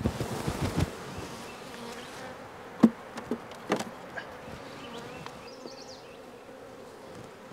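Honeybees buzzing in a steady hum around an open hive, with a scraping rustle at the start and a few sharp knocks, the loudest about three seconds in, as the frames and hive tool are handled.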